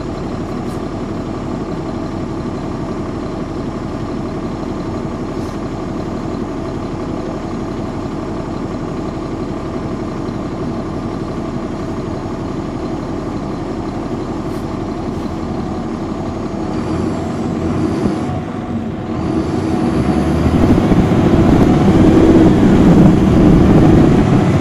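Caterpillar C13 ACERT diesel engine of a NABI 416.15 transit bus idling steadily. About three-quarters of the way in the sound dips briefly, then the engine revs up and gets louder with a rising whine as the bus accelerates.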